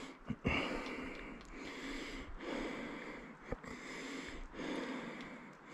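A hiker's heavy breathing close to the microphone, a breath about every second: out of breath from the steep stair-and-boulder climb. A few light knocks near the start and once midway.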